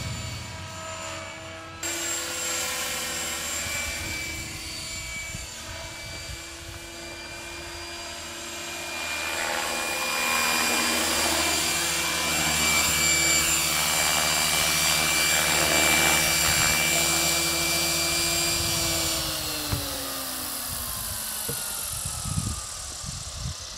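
GAUI Hurricane 425 radio-controlled helicopter flying, a steady whine of rotor and drivetrain that grows louder as it comes close. Near the end the whine falls in pitch and fades as the helicopter settles and its rotor spools down.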